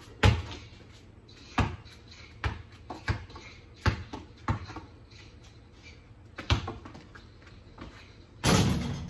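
Basketball bouncing on a wet concrete slab: about eight separate sharp bounces at uneven gaps, with a louder, longer noise near the end.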